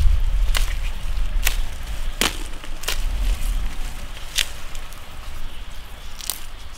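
Chili pepper stems snapping as the peppers are picked off the plant by hand: about six short, sharp snaps at irregular gaps.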